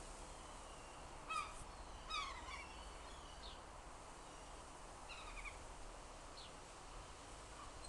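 Birds calling faintly over a steady outdoor hiss: two short pitched calls about one and a half and two seconds in, then a few fainter chirps spaced through the rest.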